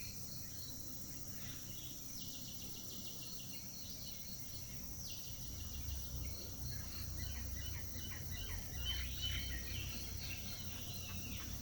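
Outdoor forest ambience: a steady high-pitched insect trill with a faster pulsing insect chirp over it, and bird calls, chiefly runs of short chirps in the second half. A low rumble rises under them about halfway through.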